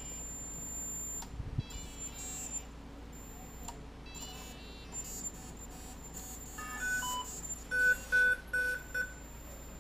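Electronic startup beeps from an electric RC helicopter's Kontronik Kosmik speed controller on power-up: a quick little run of tones at different pitches, then four identical, evenly spaced beeps near the end.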